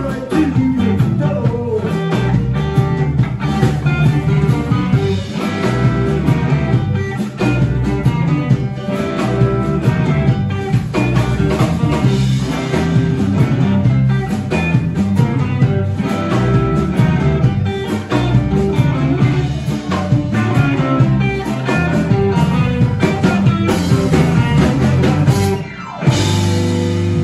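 Live electric blues band playing an instrumental stretch: electric guitar over bass, keyboard and drum kit. The music drops out briefly near the end, then comes straight back in.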